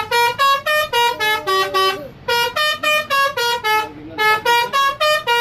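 Bus 'telolet' musical horn playing a quick tune of short notes, about four or five a second, stepping up and down in pitch. The tune comes in three runs with brief breaks about two and four seconds in.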